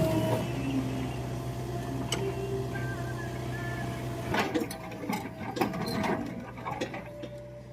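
A machine's motor running with a steady low hum, with a run of clicks and rattles from gears or linkage in the second half.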